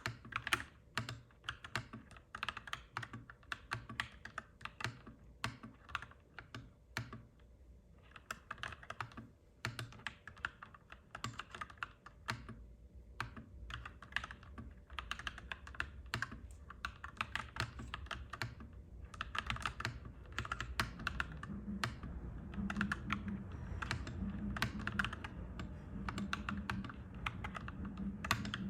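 Clacky mechanical keyboard being typed on in bursts, with a couple of short pauses. In the second half a low rumble builds underneath the typing, with a pulsing hum in the last third.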